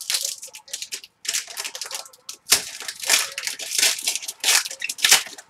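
Trading card packs and cards being handled: wrappers crinkling and tearing and cards sliding against each other in a quick run of short rustles.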